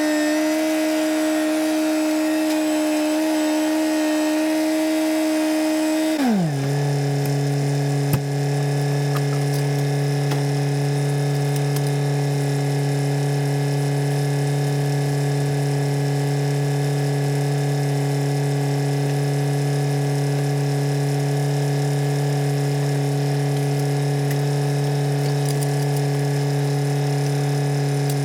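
Kioti DK40 tractor's diesel engine running at a steady high speed, then dropping quickly to a much lower steady speed about six seconds in as the throttle comes back. A single sharp click comes shortly after the drop.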